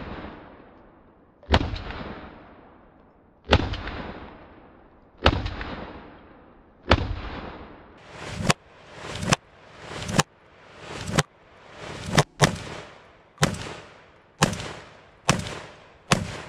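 GForce Arms GFZ 12-gauge bullpup shotgun firing fourteen shots, each a sharp bang with a trailing echo. They come about two seconds apart at first, then quicken to roughly one a second, with two shots in quick succession about three-quarters of the way through.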